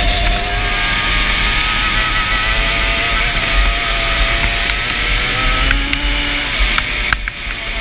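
Yamaha Banshee quad's twin-cylinder two-stroke engine running at a steady high speed, with heavy wind buffeting on the helmet-mounted microphone. The engine eases off briefly near the end.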